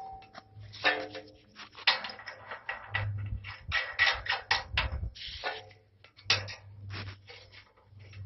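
Metal parts of a compost turner's water rack clanking and knocking together as the pieces are lined up and fitted: an irregular run of clanks and taps, a few of them ringing briefly.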